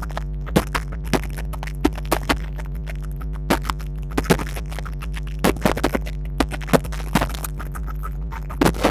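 Aerial fireworks shells bursting: an irregular run of sharp bangs and crackling reports, some close together, over a steady low hum.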